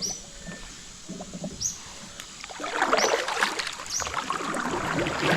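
Water splashing and dripping beside a kayak, starting about two and a half seconds in. A short high chirp repeats about once a second.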